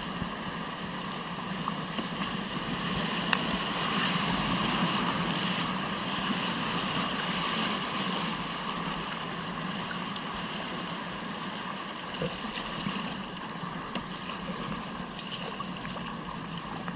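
Steady rush of whitewater on the Bashkaus River, a constant roar of moving water with a few faint short knocks.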